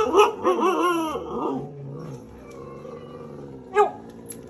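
A dog howling in a run of short rising-and-falling calls over the first second and a half, then one short sharp bark about a second before the end.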